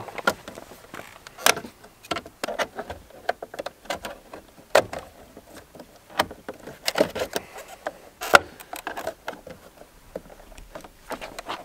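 Plastic trim-removal wedges prying off a Mercedes C-Class W205 side-mirror cap: irregular clicks, knocks and creaks of the plastic cap and its clips, with sharper snaps about five seconds in and again about eight seconds in.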